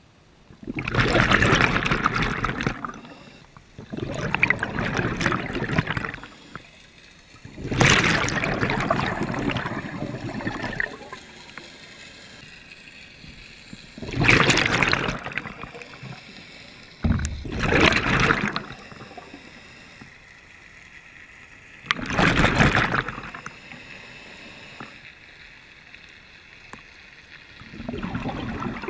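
A scuba diver's breathing underwater: exhaled bubbles burst noisily from the regulator every few seconds, each burst lasting a second or two, with a quieter hiss between breaths.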